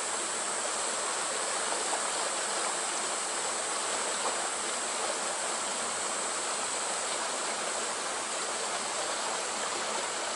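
Stream water rushing steadily through a narrow rock channel, an even, unbroken rushing noise.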